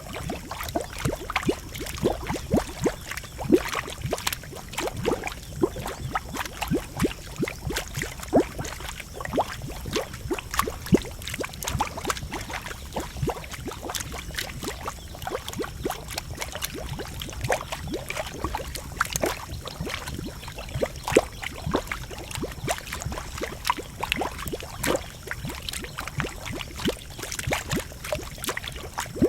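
Geothermal pool boiling and bubbling: a dense, irregular run of pops and gurgles over a steady low rumble.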